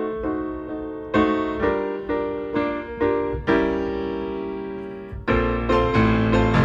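Background piano music: chords struck about every half second, one held longer in the middle, then a fuller passage with a bass line joining near the end.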